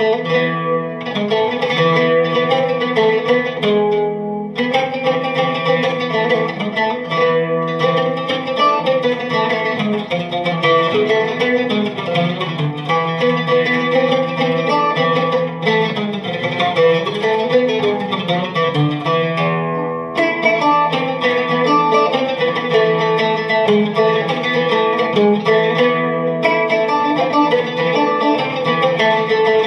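Syrian-Armenian oud playing an Armenian folk melody in fast picked notes, amplified through a piezo pickup and tube amp. The phrases break off briefly about four and twenty seconds in.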